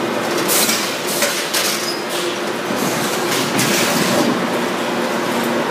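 Aluminum roofing-panel production line running: a press and conveyors carrying formed metal shingle panels give a steady drone with faint hum tones. Short bursts of metallic clatter come every second or so.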